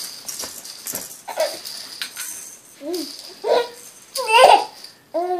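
Plastic activity-gym toys rattling and clacking as a baby kicks and swats at them, then several short, high baby coos and squeals in the second half.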